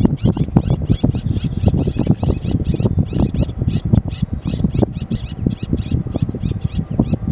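Small pratincoles calling: a rapid run of short, high chirps, about three or four a second, over a loud, irregular low rumble.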